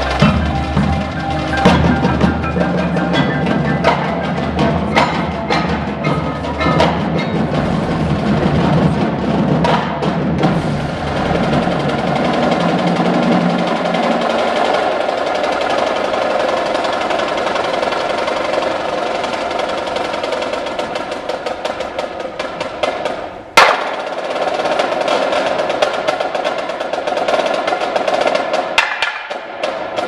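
Indoor winter drumline playing: marching snare and tenor drums in fast rhythms over front-ensemble mallet keyboards. The low drum sound drops out about halfway, and a single sharp hit about three-quarters of the way through is the loudest moment.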